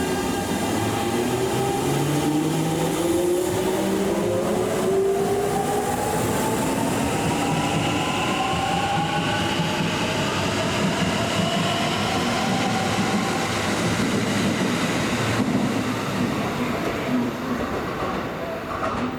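Kintetsu electric train accelerating: its traction motor whine rises steadily in pitch over ten seconds or so, over the rumble of wheels on rail.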